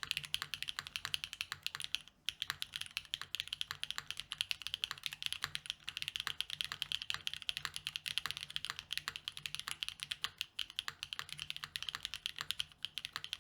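Fast, continuous typing on a Neo80 mechanical keyboard with KTT Macaron switches, GMK keycaps and an aluminium plate in an O-ring mount: a dense run of key clacks with a brief pause about two seconds in.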